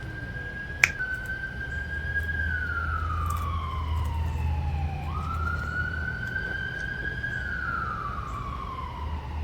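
Emergency vehicle siren wailing in slow cycles: each cycle rises quickly, holds high, then falls slowly, about twice, over a low steady rumble. One sharp click about a second in.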